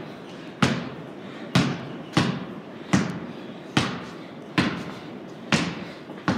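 A basketball being dribbled on a wooden plank floor: about eight steady bounces, a little faster than one a second, each echoing in a large hollow barn loft.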